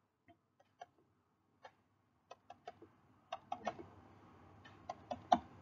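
Faint stylus taps on a writing tablet: about a dozen short clicks in irregular clusters while dots are tapped out one by one.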